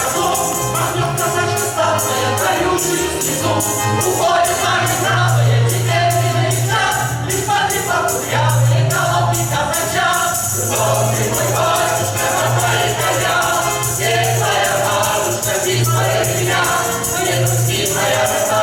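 A Cossack folk ensemble sings in chorus to a tambourine beat, over sustained low bass notes that change every second or two.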